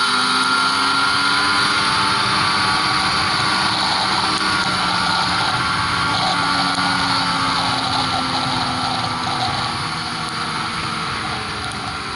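Ski-Doo Mach Z 1000 SDI snowmobile's two-stroke engine running at steady cruising speed, heard from the rider's seat with a constant rush of wind and track noise, the engine pitch rising and falling only slightly.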